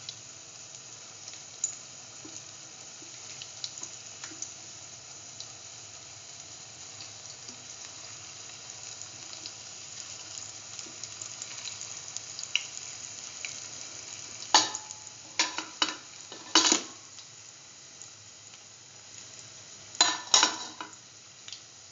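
Split chickpea fritters sizzling steadily in hot oil in a pan. A spatula knocks and scrapes against the pan in a quick run of strikes about two-thirds of the way through, and again briefly near the end, as the fritters are turned.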